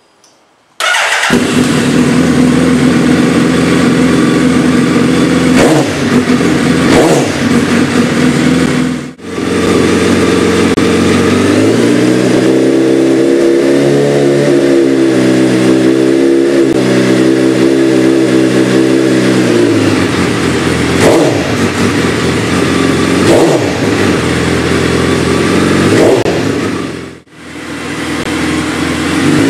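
2008 Suzuki B-King's inline-four running loud through a Two Brothers M2 exhaust with no power tips fitted: idling, with short throttle blips and a rev held several seconds in the middle before dropping back. Near the end it breaks off and the same engine comes in again with P1 power tips fitted, which are meant to cut the exhaust noise by 4 to 5 dB.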